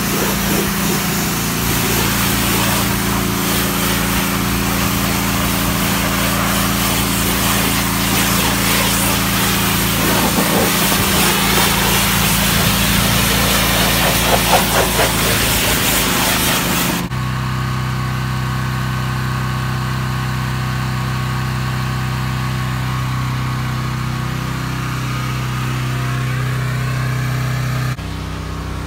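Pressure washer spraying: a loud hiss of the water jet over a steady engine hum. A little past halfway the spray cuts off abruptly, and the steady engine hum carries on alone.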